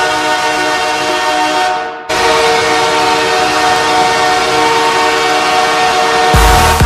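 Los Angeles Kings hockey goal horn sounding two long, loud blasts, the first ending about two seconds in and the second following right after. Near the end the goal song cuts in with a thumping electronic dance beat.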